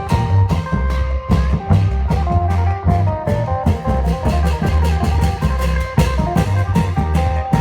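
Isan klong yao (long drum) band playing a fast, steady procession beat: deep drums under sharp cymbal-like strokes about four a second, with a plucked-string melody above.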